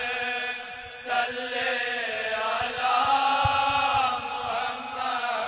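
Men's chorus of a naat party chanting a devotional kalaam in unison, with long held notes that swell about a second in.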